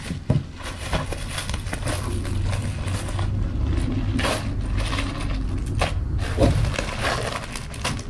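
Bubble wrap crinkling and rustling as it is handled and a plastic box is slid out of it, with scattered sharp crackles and clicks. A sharp knock just after the start.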